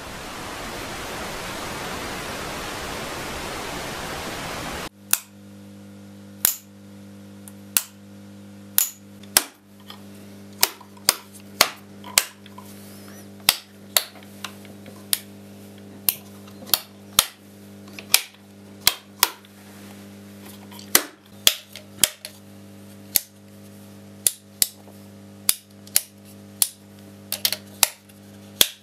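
Steady static hiss for about five seconds. Then a steady low hum, with the sharp clicks of Mi-24 cockpit toggle switches being flipped one after another at an irregular pace of about one to two a second.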